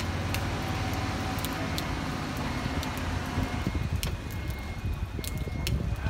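Engine running with a steady low rumble, while boxes of ceramic tiles are set down on a steel lifting frame, giving several light knocks and clacks.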